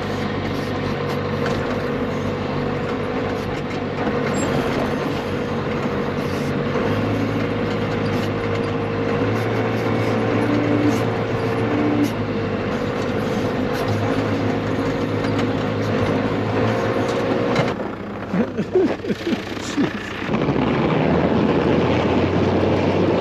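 Truck engine running under load while towing a cattle trailer stuck in deep snow, with a steady whine above the engine note; the engine note steps up about four and seven seconds in as it works to pull free. Near the end the steady running breaks off into a couple of seconds of scattered knocks, then a rougher, noisier stretch.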